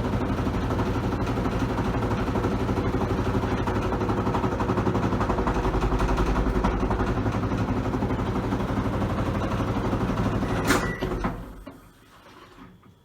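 TWINBIRD WM-EC70W washing machine spinning with the loud abnormal noise of its spin cycle: a steady hum with a fast, even rattle. About eleven seconds in there is a sharp click, and the noise dies away within about a second.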